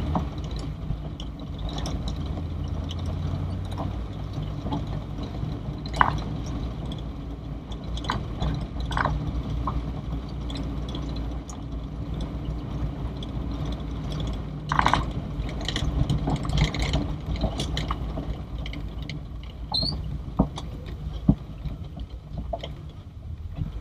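A 44-year-old Toyota Corolla DX running at driving speed, heard from inside the cabin as a steady low engine and road rumble, with scattered knocks and rattles as it goes over an uneven road.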